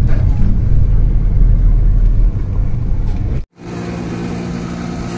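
Small car on the move: a loud low rumble that cuts off abruptly about three and a half seconds in, followed by a steadier, quieter engine hum.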